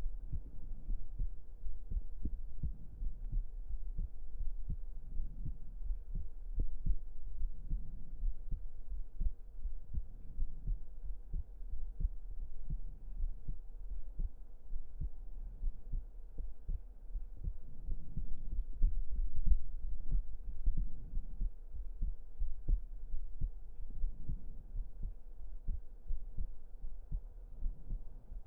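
Human heartbeat picked up close to the chest, beating steadily in low, muffled thuds.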